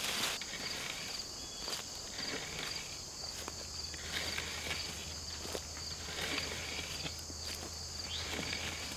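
A long wooden stick dragged and swept through dry leaf litter on the forest floor, rustling and scraping in irregular strokes about once a second, over a steady high drone of insects.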